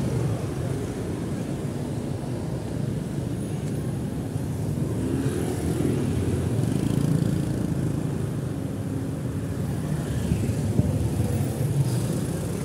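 Street traffic: motor scooters and other small vehicles running past, a steady engine rumble with no single loud event standing out.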